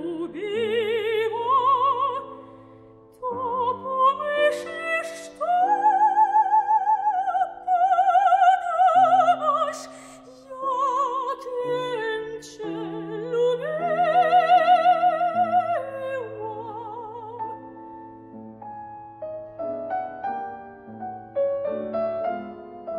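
Soprano singing a classical art song with wide vibrato and long held high notes, accompanied by a Steinway grand piano. About two-thirds of the way in the voice stops and the piano plays on alone, more softly.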